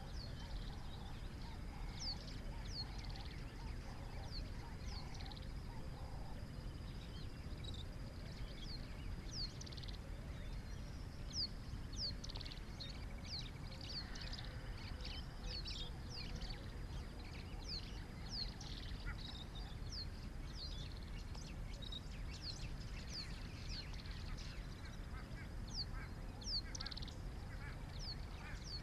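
Birds calling in the open, many short, high chirps repeated throughout, over a steady low background rumble.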